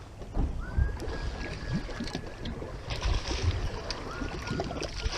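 Wind buffeting the microphone aboard a fishing boat, a gusty low rumble with scattered knocks. A faint high whine rises and then holds, once early on and again near the end.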